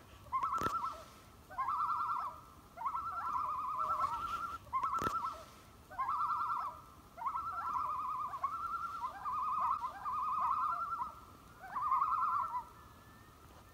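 A bird's call repeated about ten times: short, rapidly quavering phrases, each swooping up at the start, stopping a little before the end.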